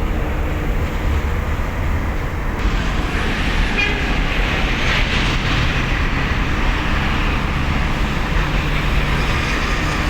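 Heavy machinery on a cargo ship running with a loud, steady low rumble during cargo discharge, with a rushing, hissing noise joining in about two and a half seconds in.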